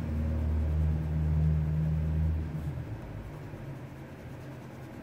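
A low, steady mechanical hum that cuts off suddenly about two and a half seconds in, leaving quiet room tone.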